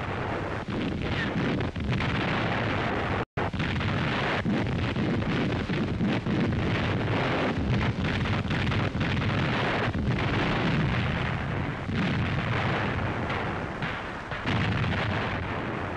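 Artillery shells exploding amid gunfire in a continuous battle din, with many blasts overlapping. The sound cuts out for a split second a little over three seconds in.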